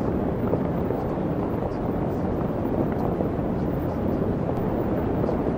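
Steady, dense rushing noise, strongest in the low and middle range, with no clear tone or beat: a masking noise bed of the kind laid under subliminal audio tracks.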